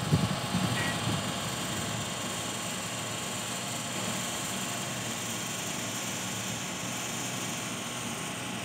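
Steady drone of running industrial machinery with a low hum under it, and a few low thumps in the first second.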